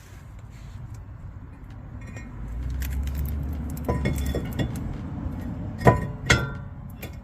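Metal tools or parts clinking against each other, a few sharp ringing clinks, the loudest about six seconds in.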